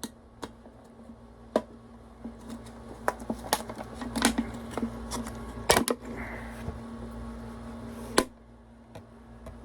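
Scattered clicks and knocks of objects being handled and set down, irregular and uneven in loudness, with the sharpest knocks about six and eight seconds in, over a steady low electrical hum.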